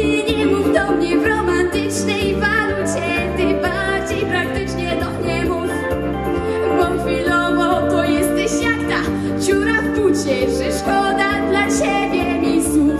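A girl singing into a handheld microphone over a backing track with a steady, pulsing bass beat; her held notes waver in pitch.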